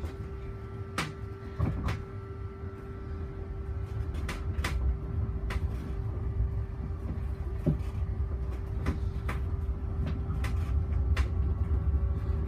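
Heathrow Terminal 5 ULTra electric pod running along its guideway, heard from inside the cabin: a steady low rumble under a constant mid-pitched hum, growing somewhat louder a few seconds in. Scattered sharp clicks and knocks sound over it.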